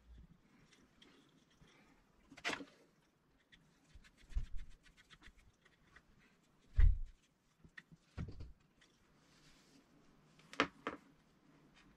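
Scattered clicks and knocks of objects being handled, with a few dull thumps; the loudest thump comes about seven seconds in. No motor is running.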